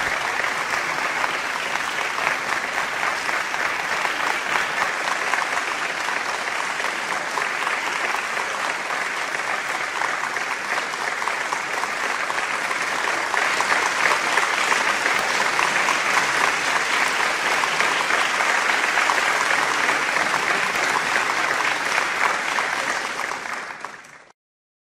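Audience applauding, a dense sustained clapping that grows louder about halfway through, then fades out quickly near the end.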